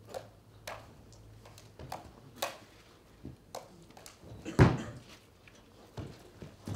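Juggling clubs being caught and knocking against the hands and each other in irregular smacks, with one louder deep thump about four and a half seconds in.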